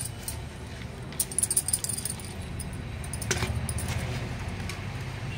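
Bangles jingling on a wrist, with a few sharp clicks and light rustling as soil is dropped by hand onto dry flowers in a clay pot, over a steady low hum. The clicks come in a quick cluster about a second in, with a single one a little past the middle.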